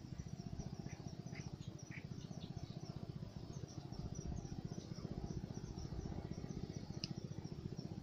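Swamp ambience: small birds chirping in short, repeated high calls, over a steady, fast low pulsing.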